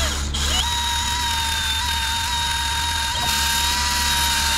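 Handheld band file (narrow belt sander) running. Its whine climbs about half a second in, then holds at one high pitch over a steady hiss.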